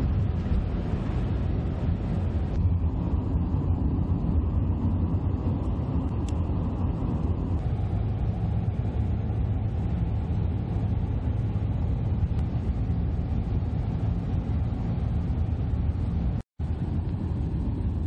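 Steady low rumble of a car driving on a snowy, slushy highway, heard from inside the cabin: tyre and engine road noise. It drops out for a split second near the end.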